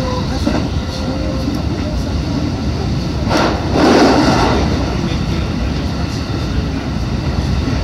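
Running noise of a JR West 221 series electric train heard from inside its cab at speed: a steady rumble of wheels on rail. A louder rush of noise swells and fades about three and a half seconds in.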